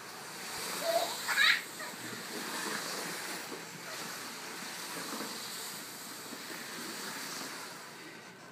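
Cardboard diaper box sliding and scraping across a hardwood floor with a baby in it, a steady swishing hiss, with a short high squeal about a second in.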